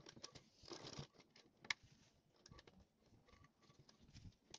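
Near silence with faint rustling and small taps of blouse fabric being handled at a sewing machine, and one sharp click a little under two seconds in.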